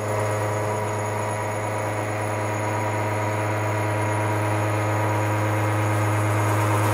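Disc milling cutter slotting into a steel block on a CNC milling machine: a steady machining drone with a constant low hum and overtones.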